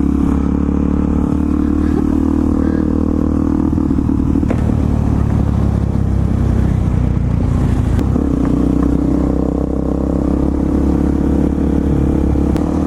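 Motorcycle engine running steadily while riding, with its note easing off for a few seconds midway and then picking back up.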